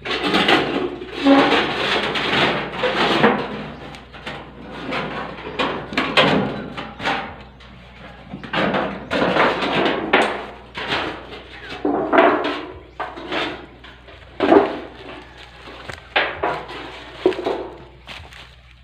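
Corrugated metal roofing sheet being lifted, shifted and pulled aside by hand, rattling and scraping in a run of loud irregular bursts.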